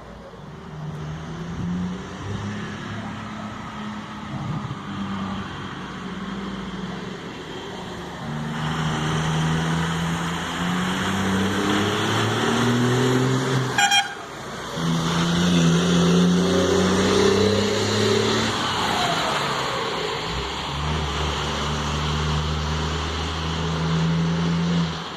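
Volkswagen Constellation 24.250 truck's Cummins ISB electronic diesel engine running and rumbling, its pitch climbing in steps and settling again. A faint turbocharger whistle rises and falls over it. About fourteen seconds in the engine sound breaks off briefly, then comes back.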